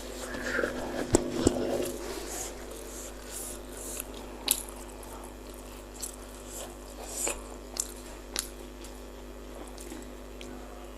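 A person eating bakso meatballs up close: chewing and wet mouth sounds, broken by a handful of short sharp clicks.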